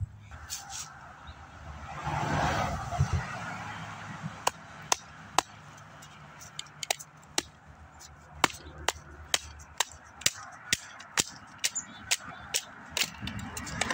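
Knife being batoned down through a block of wood: a steady string of sharp knocks, about two a second, as the blade splits off thin strips. A brief rush of noise comes about two seconds in, before the knocking starts.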